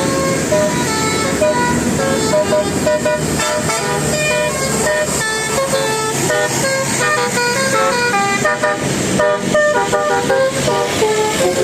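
A bus's Basuri-type telolet horn playing a fast melody of short, stepped notes, several horn tones sounding together, over a steady engine drone.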